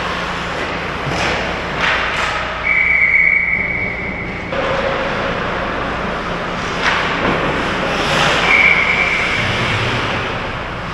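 Ice hockey play close to the goal: skate blades scraping and carving on the ice, with several sharp knocks of sticks and puck, over a steady rink noise. A high steady squeal sounds twice, about three seconds in and again near the end.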